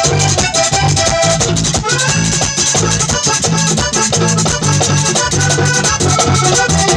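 A live vallenato band playing an instrumental passage: a button accordion carries the melody over bass guitar, a hand drum and a scraped guacharaca keeping a quick, steady rhythm.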